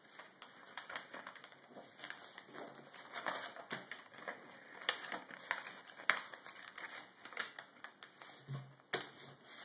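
A sheet of paper rustling and crackling as it is folded by hand and its creases pressed flat against a wooden table, folding down the wings of a paper airplane. Irregular small crackles and ticks, with a few sharper snaps in the middle.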